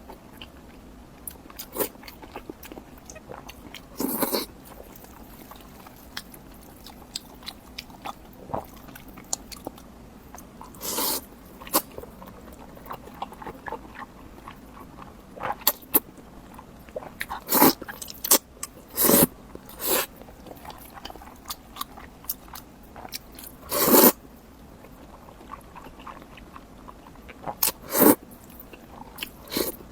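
Close-miked eating: a loud crunching bite every few seconds at irregular intervals, with softer chewing and mouth clicks between.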